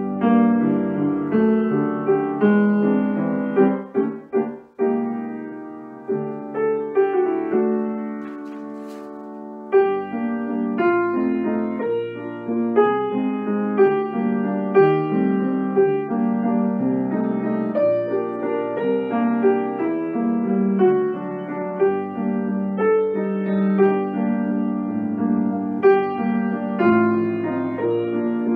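Solo grand piano played from sheet music, a flowing piece of many notes. About six seconds in a chord is held and fades for a few seconds, then playing resumes with a loud chord near ten seconds.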